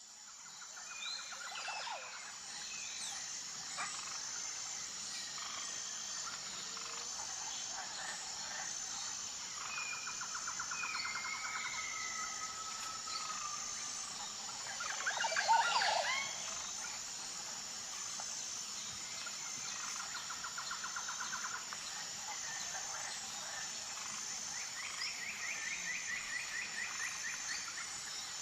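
Forest ambience: several birds calling, with repeated rapid trills and short whistles over a steady high-pitched drone. It fades in at the start, and the loudest burst of calls comes about halfway through.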